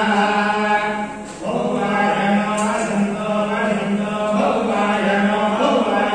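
Several voices chanting a devotional mantra together on a near-steady pitch, with a brief pause about a second in.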